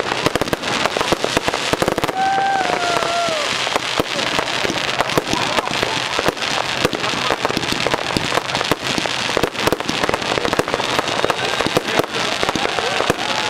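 Fireworks display going off in rapid succession: a dense, unbroken stream of pops, bangs and crackles. A short falling whistle sounds about two seconds in.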